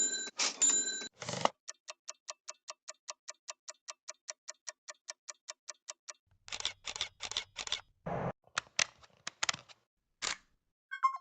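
Motion-graphics sound effects played one after another: a few sharp clicks with bright pings, then a fast, even run of short pitched ticks, about six a second for some five seconds, like a clock or ratchet, then scattered clicks and a brief swoosh.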